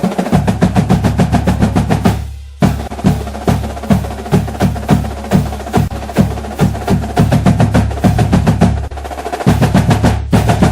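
Drum-heavy background music: a steady, fast beat of drum and snare hits over a bass line, breaking off briefly about two seconds in.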